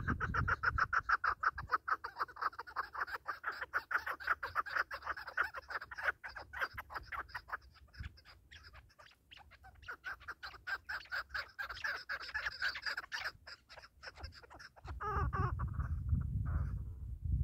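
Chukar partridges calling: a long run of rapid, evenly repeated chuk-chuk clucks that pauses briefly near the middle and thins out near the end. A low rumbling noise comes in over the last couple of seconds.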